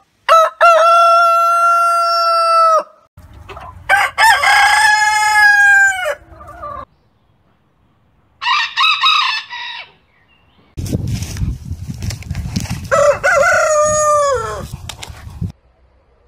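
Roosters crowing one after another, four crows from different birds, each a long drawn-out cock-a-doodle-doo, the third shorter than the rest. A low rumble of background noise runs under the second and fourth crows.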